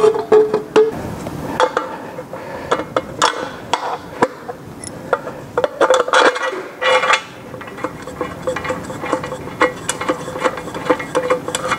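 Metal clicking and clinking as propeller bolts are fitted by hand through the forward spinner bulkhead into the propeller hub, in irregular light taps with a few louder clusters.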